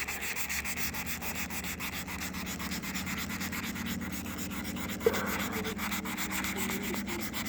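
Sandpaper being rubbed by hand over a van's fender flare, a continuous gritty rasping of repeated strokes.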